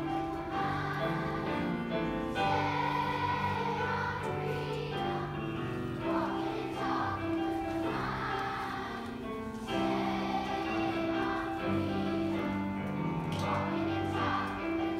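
Elementary-school children's choir singing a song together, continuous and steady with held notes.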